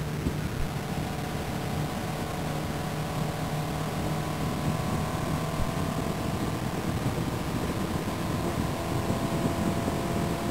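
Open-wheel race car's engine heard from the cockpit, running hard at track speed, its pitch creeping up in the second half as the car accelerates.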